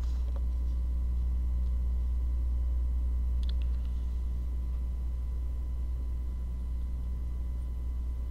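Steady low hum with faint, thin steady tones above it, and a faint tick about three and a half seconds in.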